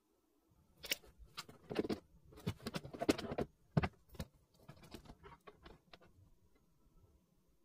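A rapid run of hard plastic clicks, knocks and rattles, busiest in the first few seconds, then thinning out into scattered light ticks: plastic parts of a Philips espresso machine being handled.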